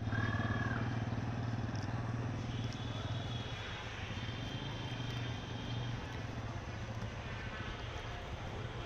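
A motor vehicle engine running steadily with a low hum, and a short high tone in the first half-second.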